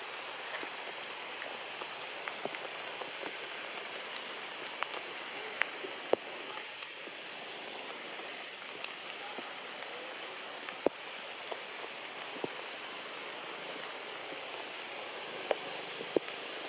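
Steady rain falling on forest foliage, with scattered sharp taps of single drops striking leaves and branches.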